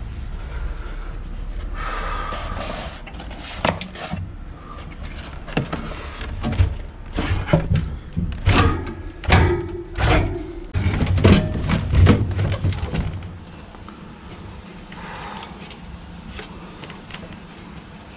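Knocks, clunks and scraping from hands and tools working on an air conditioner, over a low steady rumble that cuts off about thirteen seconds in, leaving only faint background.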